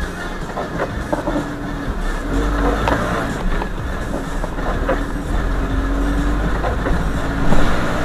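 Car on the road: steady engine and road rumble with scattered small knocks, briefly louder near the end.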